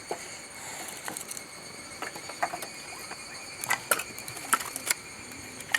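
Campfire kindling crackling, with scattered sharp snaps that come more often in the second half, over a faint steady hiss.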